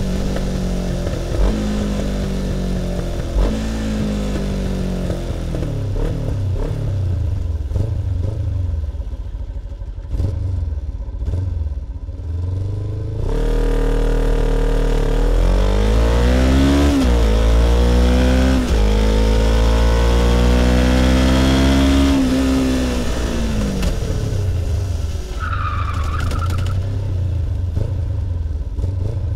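Kawasaki Ninja 500's parallel-twin engine with twin carburettors, heard close to its intake and subdued exhaust: the engine note falls and picks up again several times in the first half, then about halfway through it is opened up and its pitch rises with two quick gear changes, holds steady, and falls away as the throttle closes. Near the end a short high squeal sounds briefly over the engine.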